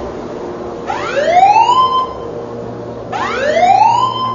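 Building fire alarm sounding its evacuation signal across the whole building: a rising whoop tone that climbs, levels off and stops, twice, about every two seconds.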